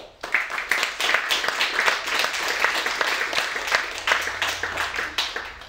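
Audience applauding, many hands clapping together. It starts just after the poem ends and dies away near the end.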